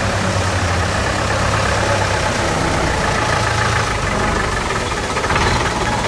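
Ebro B45 truck engine idling steadily.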